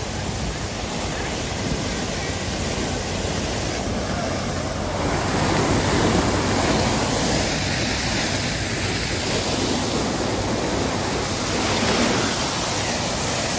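Water gushing from the open riser of a fire hydrant sheared off by a semi truck: a steady, heavy rush of spray falling onto flooded pavement, growing louder about five seconds in.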